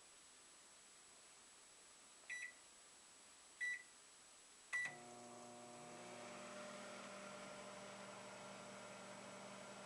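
Microwave oven keypad beeping three times, then the oven starting up and running with a steady hum.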